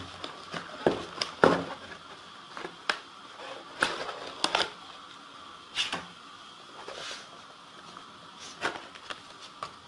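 Cardboard phone box being handled: scattered taps and scrapes as the white card tray insert is moved and fingers brush over it.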